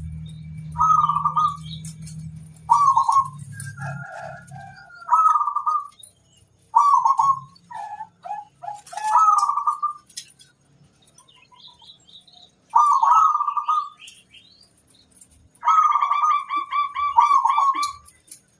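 Zebra doves (perkutut) cooing: short trilled coo phrases repeat every two seconds or so, with fainter high chirps between them. A low hum sounds under the first few seconds.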